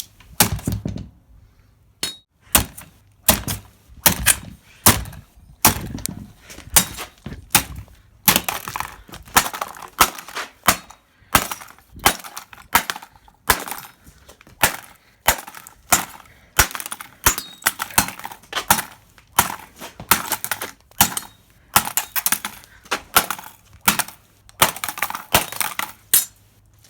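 A machete hacking repeatedly at a computer motherboard, a steady run of sharp chopping blows about one and a half a second, each with the crack and clatter of the board breaking up.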